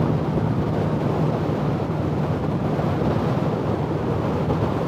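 Heavy wind noise on a microphone stuffed into a motorcycle helmet's cheek pad at highway speed, a steady rushing roar with the motorcycle's engine humming low and steady beneath it.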